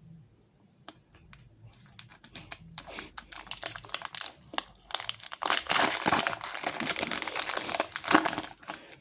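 Foil wrapper of a Pokémon Sword and Shield booster pack being torn open and crinkled. Quiet for the first couple of seconds, then crackling that grows denser and louder, heaviest in the second half.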